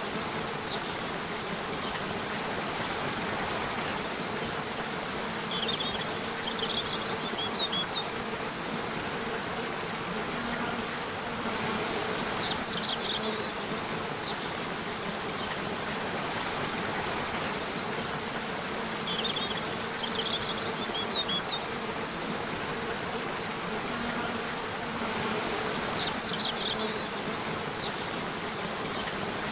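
Nature soundscape: a steady rush of flowing water with an insect buzzing as a wavering hum. Short clusters of high chirps, likely birds, recur every six or seven seconds.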